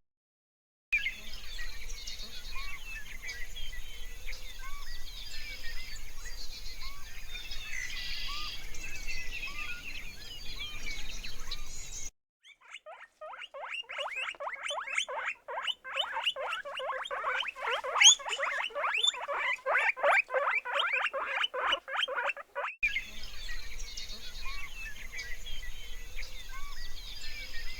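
Small birds chirping over a steady outdoor background, broken in the middle by about ten seconds of an animal's rapid, harsh, pulsing call, after which the chirping returns.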